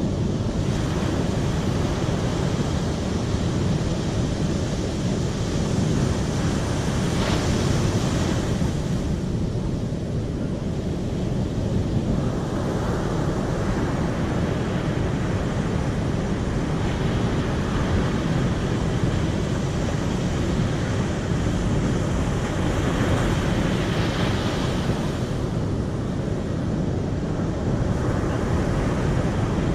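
Steady rushing of flowing water, swelling a little brighter for a few seconds now and then.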